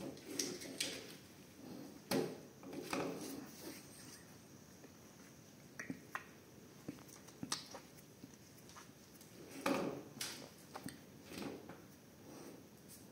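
Long-haired dachshund rummaging through a basket of toys and chews: irregular rustles, knocks and light clicks as items are pushed about and pulled out.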